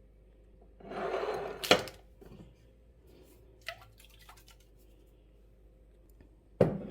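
Kitchen handling noises: a brief rushing, rustling noise about a second in that ends in a sharp clack, a few small clicks, then another sharp knock near the end.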